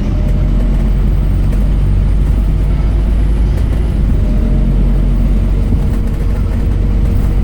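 Scania K270UB Omnilink bus's five-cylinder diesel engine running steadily: a low, even drone with a faint whine above it.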